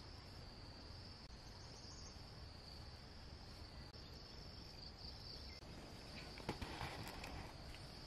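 Steady high-pitched chorus of insects such as crickets, with a brief rustle about six and a half seconds in.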